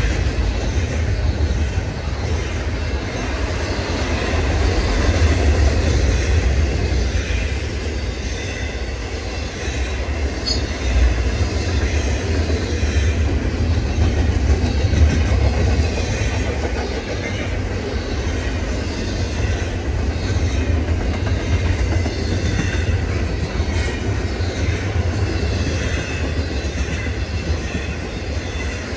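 Double-stack intermodal freight train's container well cars rolling past: a steady rumble of steel wheels on the rails.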